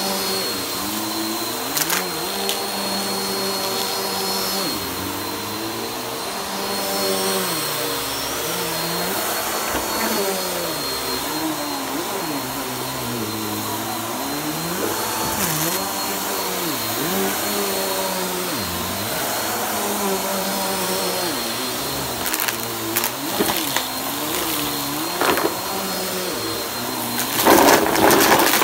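Upright vacuum cleaner running over a rug and sucking up shredded tissue paper. Its motor pitch wavers up and down over a steady high whine, and near the end there is a burst of crackling and rattling as paper scraps are drawn in.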